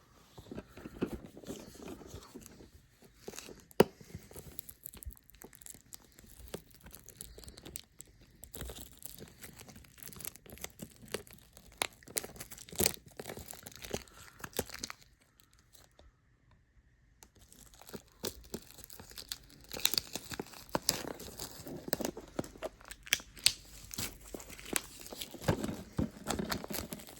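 Packaging being torn open and crinkled by hand: irregular tearing, rustling and crackling, with a short pause about halfway through.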